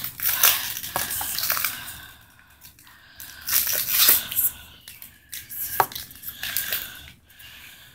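Foil wrapper of a Pokémon card booster pack crinkling and tearing open by hand in several rustling bursts, then the cards being slid out of it.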